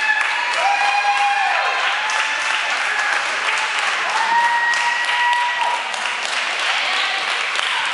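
Small crowd applauding after a wrestling match, a steady patter of clapping hands. Several held tones, each about a second long, rise and fall over the clapping.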